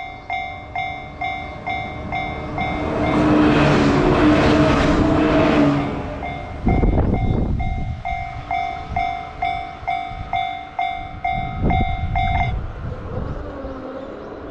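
Japanese level-crossing warning bell ringing about twice a second while a two-car JR 115 series electric train runs through the crossing. The train is loudest from about three to six seconds in, and a few heavy wheel thumps follow. The bell cuts off near the end as the crossing clears.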